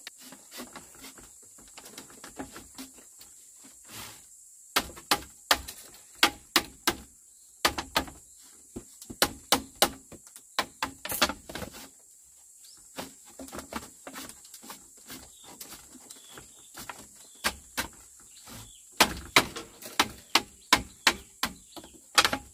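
Irregular sharp knocks and taps, some coming in quick runs of several, over a steady high hiss.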